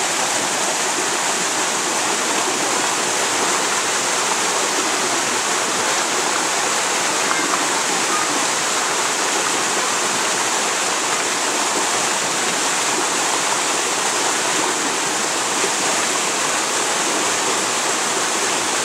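Rushing water of a rocky stream tumbling over boulders, with a tall waterfall nearby: a steady, unbroken hiss.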